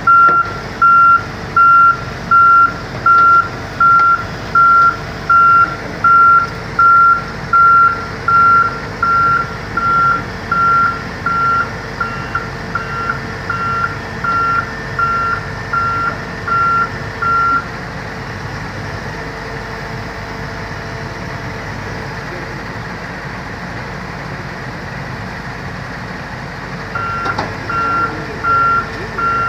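Heavy machine's backup alarm beeping at a steady pace, about one and a half beeps a second, over a steady diesel engine. The beeping stops a little past halfway and starts again near the end while the engine keeps running.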